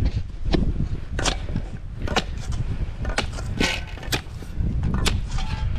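Metal digging tool striking and scraping into hard, rocky ground: about eight sharp strikes at uneven intervals, over a steady low rumble.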